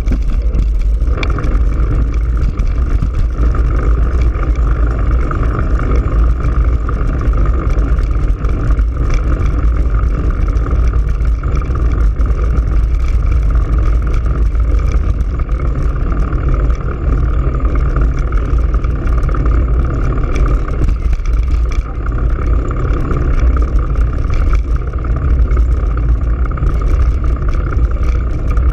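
Steady wind rumble on a bicycle-mounted GoPro Hero3's microphone while riding along a paved street, with tyre and road noise underneath.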